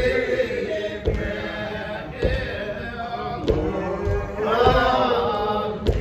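A woman singing a slow hymn unaccompanied, drawing out long held notes in the Primitive Baptist style. A few dull low thumps fall every second or so under the singing.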